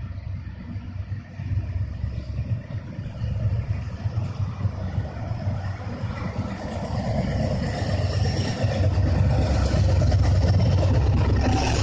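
Diesel locomotives of a CSX freight train accelerating as they approach, a low engine rumble that grows steadily louder and fuller as the lead unit draws near.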